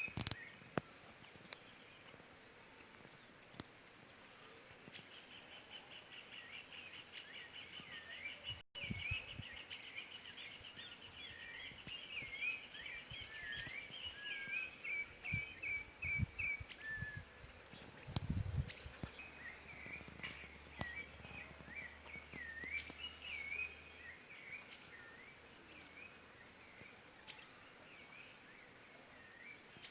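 Rufous-bellied thrush (sabiá-laranjeira) singing short whistled phrases again and again, over a steady high insect drone. A fast trill runs for several seconds near the start, and a few low thumps come around the middle.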